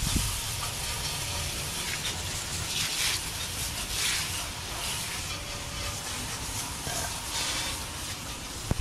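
Garden hose spray jetting onto an alloy wheel and tyre, a steady hiss of water spattering as the cleaner is rinsed off. A sharp click near the end.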